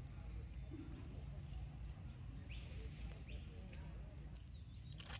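Faint outdoor ambience: a steady high insect drone over a low rumble, with two short high chirps about halfway through and a sharp click near the end.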